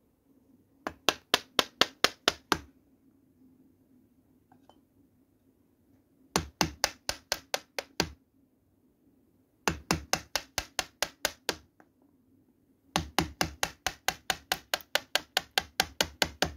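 Wood chisel jabbed by hand into the end of a wooden board, chopping out a notch: four runs of sharp knocks about five a second, each run about two seconds long, the last one longer and still going at the end.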